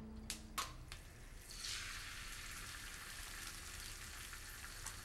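An egg frying in a skillet, sizzling steadily from about a second and a half in, after a couple of sharp clicks.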